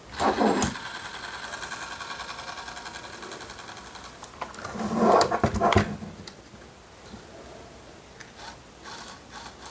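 Robot arm servo motor run directly off a 9-volt battery, whirring steadily through its gearing as it swings the aluminium arm joint. There are louder bursts just after the start and again about five seconds in, then it goes quieter with a few clicks.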